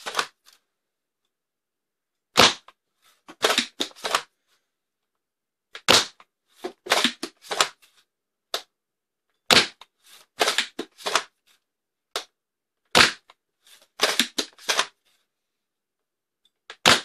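Spring-powered foam dart blaster, the X-Shot Longshot Pro fitted with a Dart Zone bearing scar barrel, fired five times through a chronograph. Each shot is a sharp snap, coming every three to four seconds, and each is followed about a second later by a short clatter of clicks.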